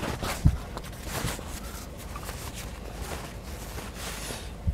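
A few soft low knocks and light rustling, the strongest knock about half a second in, over a steady low rumble.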